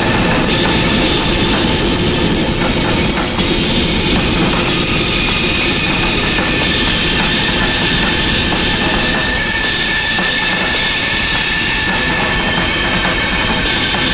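Harsh noise music: a loud, unbroken wall of distorted static filling every pitch from deep rumble to hiss, with a thin steady high whine running through it.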